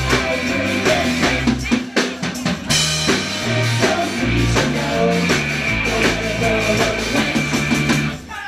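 Live rock band playing: drum kit, bass and electric guitars, with a long held high note over the top. The band stops abruptly near the end.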